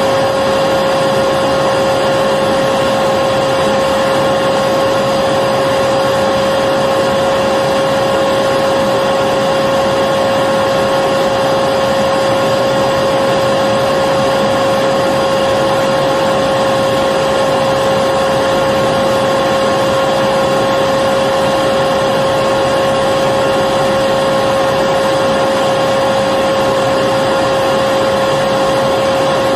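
Electric vacuum cleaner running steadily, a constant motor whine over the rush of air, with no change in pitch or level.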